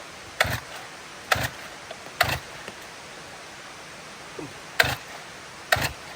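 Makita DCS 341 two-stroke chainsaw being pull-started: short, sharp pulls of the recoil starter about one a second, three in a row, a pause, then two more near the end. The engine does not catch and run between pulls.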